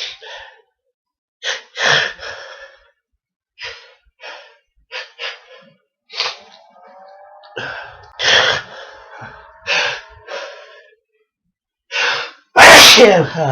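A man with a heavy head cold gasping in a string of short, sharp breaths, a few with a voiced 'ah', as a sneeze builds, then sneezing loudly near the end.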